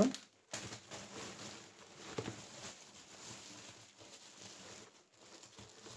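Thin plastic packaging and a plastic shopping bag rustling and crinkling in the hands, with soft, irregular crackles.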